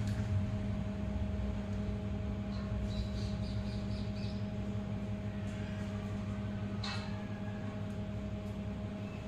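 A steady low hum, with a faint click about seven seconds in as glass is worked into an aluminium window frame by hand.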